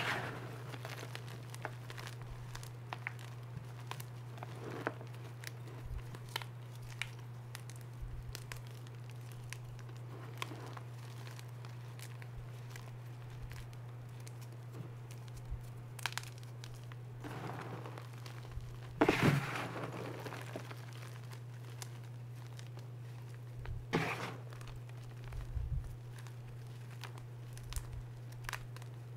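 Hands crushing and crumbling reformed gym chalk blocks and discs in a tub of chalk chunks and powder: scattered small crunches and crackles, with a louder crunch a little past the middle and a few more clusters near the end. A steady low hum runs underneath.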